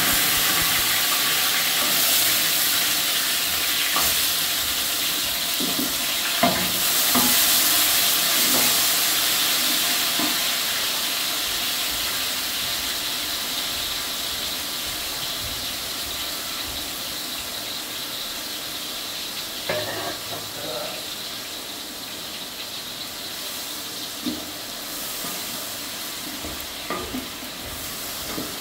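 Sliced onions and a spice paste sizzling in hot oil in a large aluminium pot. The sizzle is loud at first and slowly dies down. A few knocks and scrapes come from a wooden spatula stirring them.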